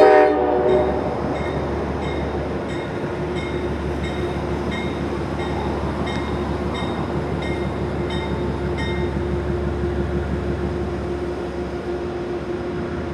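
Diesel commuter train approaching, with a short horn blast at the start. A bell then rings about every 0.7 s until roughly two-thirds of the way through, over a steady low diesel rumble.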